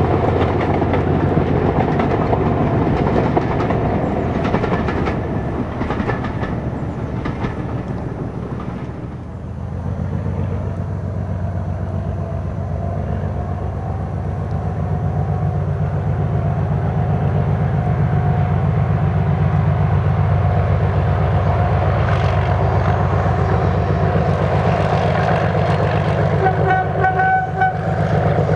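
A train of passenger coaches rolls past with wheels clicking over the rail joints. Then a Class 37 diesel-electric locomotive approaches hauling coaches, its engine running with a steady low hum that grows louder. Its horn sounds briefly near the end.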